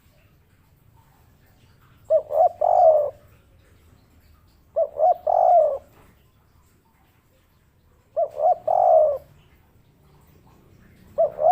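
Spotted dove (tekukur) cooing its three-note 'kuk 3' phrase: two short coos and a longer, slightly falling third. The phrase comes three times, about every three seconds, and a fourth begins right at the end.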